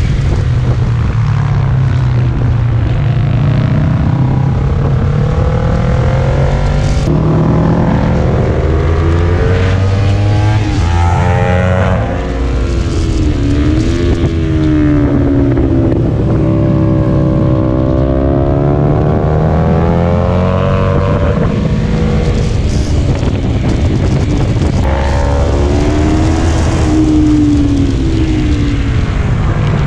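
Motorcycle engine heard onboard at track speed, its pitch rising and falling as the throttle is worked through the corners, under heavy wind rush on the microphone.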